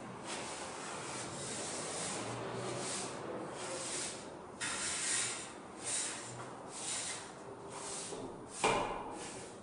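Angle broom's bristles sweeping a concrete floor in repeated brushing strokes, about one a second in the second half, with a single knock near the end.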